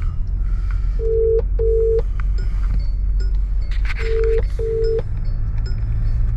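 Telephone ringback tone heard on the caller's phone while an outgoing call rings: two double rings ("ring-ring"), one about a second in and one about three seconds later.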